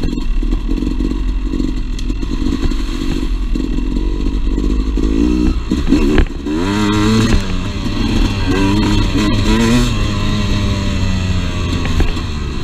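Two-stroke dirt bike engine running under way. It is fairly steady at first, then from about halfway the revs rise and fall repeatedly as the throttle is worked.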